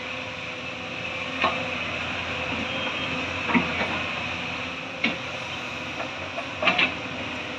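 Hyundai crawler excavator digging: the diesel engine runs steadily, and the steel bucket gives a few sharp clanks as it bites and scrapes through earth and stones, two of them close together near the end.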